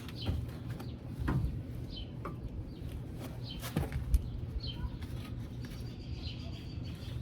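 Dull thumps of a boot kicking a wrench to break a heated, seized outer tie rod end loose on a 2013 Kia Soul, a few kicks spaced about a second apart. Birds chirp in the background.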